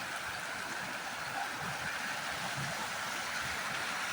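River water flowing with a steady rushing sound.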